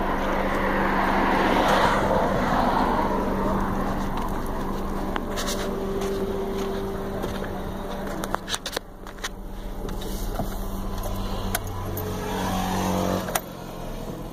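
Car engine of a Toyota Corolla Altis 1.8 running with a steady hum, with sharp clicks in the middle from the ignition key and controls being handled. About a second before the end, a short rising sound cuts off suddenly.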